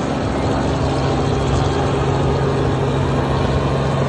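Helicopter idling on the ground, a steady engine drone with a constant low hum that strengthens a little about a second and a half in.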